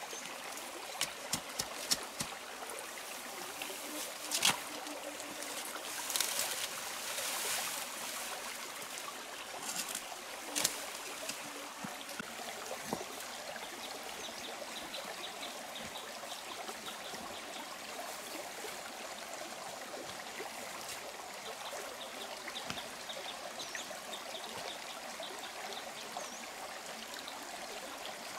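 Steady trickle of a shallow rocky stream. Over the first ten seconds or so, a few sharp knocks and clatters, typical of green bamboo poles being handled and worked into the ground.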